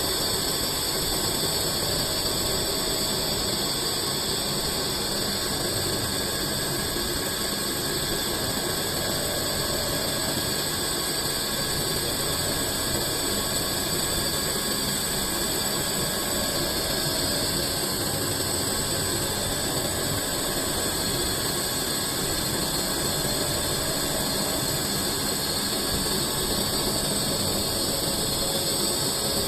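CNC lathe running steadily while turning a cylinder blank into a sphere: an even machining noise with several high, steady whines over it.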